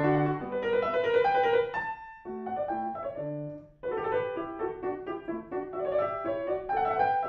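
Solo grand piano played in a quick classical-style passage of running notes, with two brief breaks between phrases, about two seconds in and just before four seconds in.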